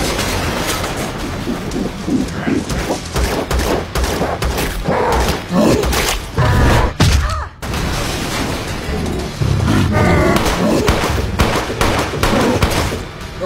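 Action-scene soundtrack of rapid, irregular gunfire and heavy booms, with short shouts or grunts breaking through twice.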